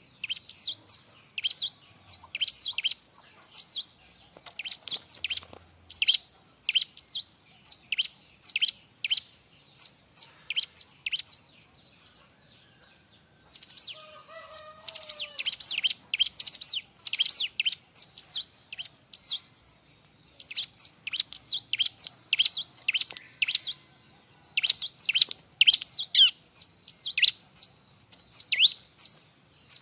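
Bar-winged prinia (ciblek) singing a long, busy run of short, sharp, high notes that sweep downward, a few a second. It breaks off briefly about twelve seconds in, then goes into a denser, faster chatter for about four seconds.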